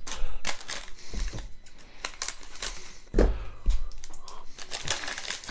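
Gloved hands handling trading cards and a plastic-wrapped Prizm football value pack on a tabletop: a run of light clicks and crinkles, with a dull knock about three seconds in.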